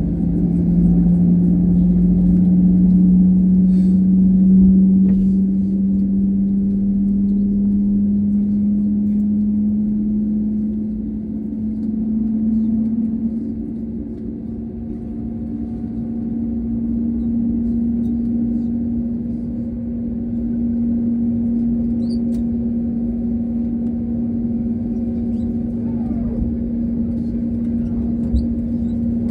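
Airbus A320neo's engines heard inside the cabin: a steady hum over a low rumble. The tone rises slowly in pitch over the first dozen seconds, then holds steady.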